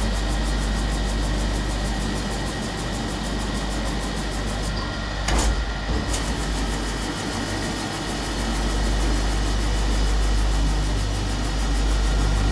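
Multi-spindle automatic copper-cup polishing machine running: a steady low electric-motor hum with a thin constant whine over it. Two short knocks come around the middle.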